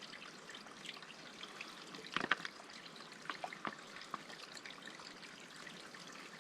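Filtered water trickling from a squeeze filter into a bottle as the soft pouch is squeezed. A short cluster of sharp clicks about two seconds in, with a few more a second later.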